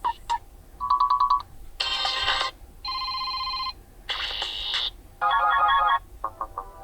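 HOTWAV T5 Pro smartphone's built-in system ringtones, played one after another: about six or seven short melodies, each a different tune lasting under a second, cut off with brief gaps between them.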